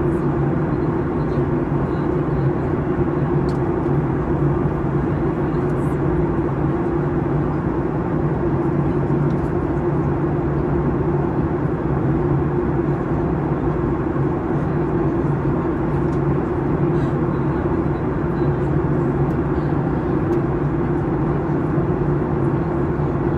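Steady cabin noise of a jet airliner in flight, heard inside the cabin: an even rush of air and engine noise over a constant low hum that does not change.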